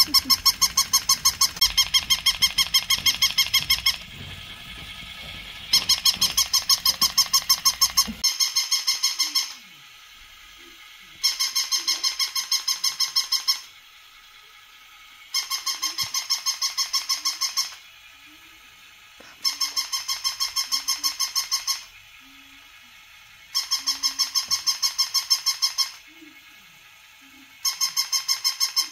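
Battery-operated toy puppy's electronic bark: rapid high-pitched yips, about eight a second, in bursts of about two seconds that repeat every four seconds or so.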